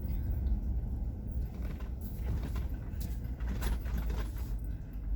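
Vehicle engine running with a steady low rumble, with a few sharp clicks and knocks about two, three and three and a half seconds in.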